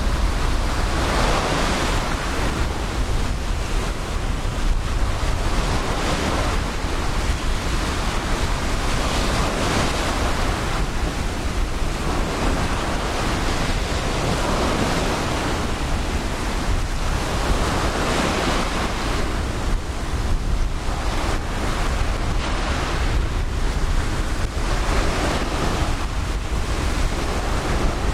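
Ocean surf breaking on a beach, with waves washing in and swelling every few seconds. Under it, a steady low rumble of wind on the microphone.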